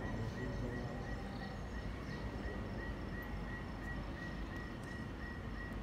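Insect-like chirping from the show's soundtrack: one short high chirp repeating about four times a second at an even pace, over a steady low rumble.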